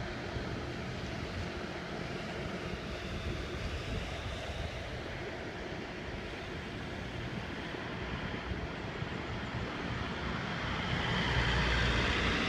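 Steady rush of wind and road noise from riding a bicycle, growing louder near the end.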